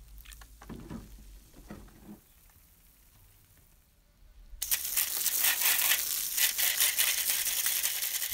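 A few light splashes from a gloved hand in an electrolytic pickling bath. About halfway through, a loud hissing, spattering jet of water starts, rinsing the stripped tin body of a model bus.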